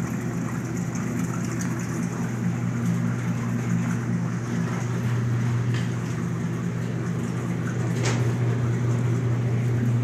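Steady low mechanical hum of a running laundry machine, with a couple of faint clicks about six and eight seconds in.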